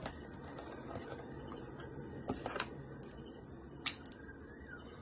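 Cardboard perfume box being opened and a glass perfume bottle handled, giving a few light clicks and knocks: a pair about halfway through and a sharper click near the end.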